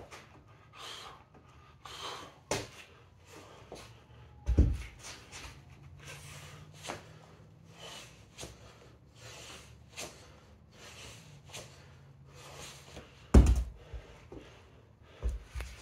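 Hard, rhythmic breathing of a man exercising, a quick exhale with each push-up and kettlebell swing. A dull, heavy thud about four and a half seconds in, and a louder one near the end as the cast-iron kettlebell is set down on the rubber gym floor.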